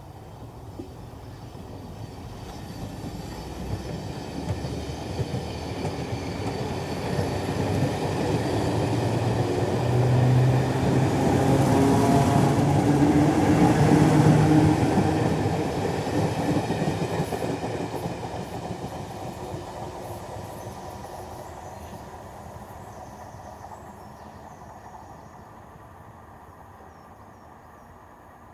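Electric commuter train on the rails, growing steadily louder to a peak around the middle, then slowly dying away.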